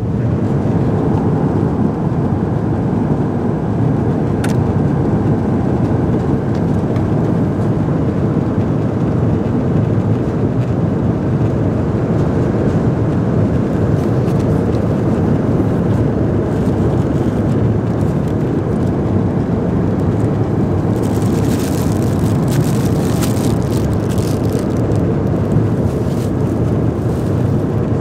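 Steady rushing cabin noise inside a Boeing 777-300ER airliner. Near the end, plastic wrapping crinkles as it is handled.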